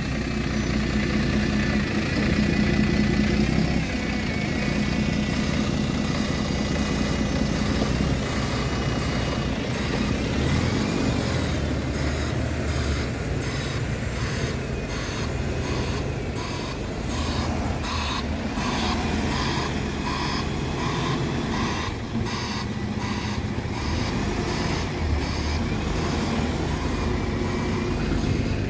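A double-decker bus engine running and pulling away. In the second half a beeping alarm repeats at about one beep a second.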